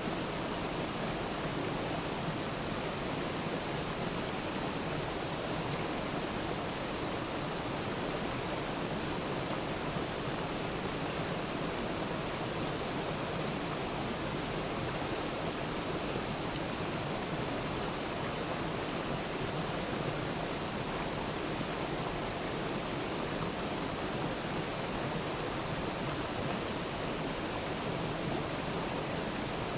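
Waterfall: a steady rush of falling water that holds at an even level, without breaks or distinct splashes.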